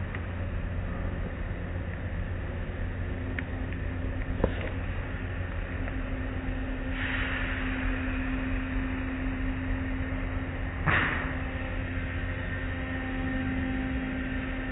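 Automatic tunnel car wash heard from inside the car: a steady rumble and hum of the machinery with water running over the glass, a sharp knock about four and a half seconds in, a rush of hiss around seven seconds, and a loud sudden hit about eleven seconds in.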